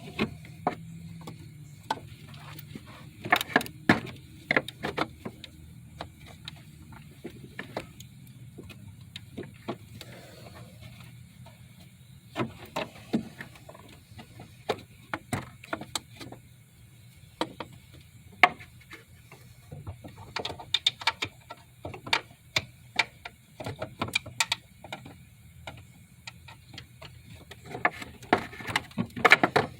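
Irregular clicks and knocks of hand tools and car parts being handled, some in quick clusters, during removal of the old blow-off valve parts, over a steady low hum.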